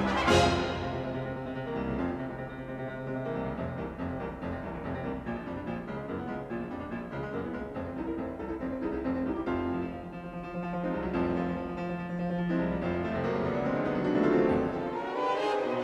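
Instrumental classical-style music with a keyboard instrument carrying the tune, opening on a loud struck chord.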